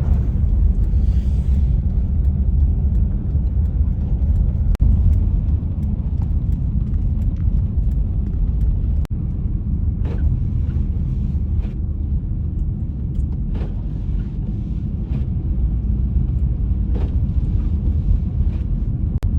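Steady low rumble of a vehicle driving on a road, with faint brief hissing strokes in the second half. The sound cuts out for an instant twice.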